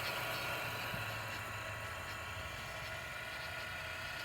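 Teletype machine's motor running with a steady hum, with a few faint ticks.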